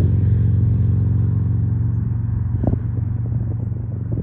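A large engine running, a steady low drone that slowly fades away, with a single knock about two and a half seconds in.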